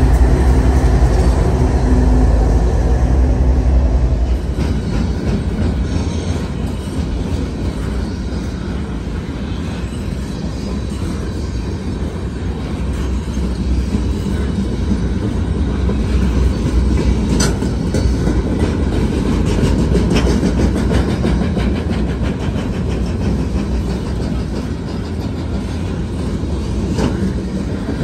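Diesel freight locomotives passing close by, their engines running loud for the first four seconds or so. They give way to a steady rumble of the train's steel wheels on the rails as loaded flatcars roll past, with a sharp click a little past halfway.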